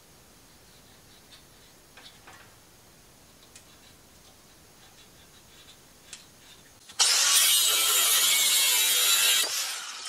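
A few faint handling clicks, then about seven seconds in a power grinder cuts in loud and runs a steady hiss of a cutting wheel on metal for about two and a half seconds before dying away: the fender bracket's bolts being trimmed.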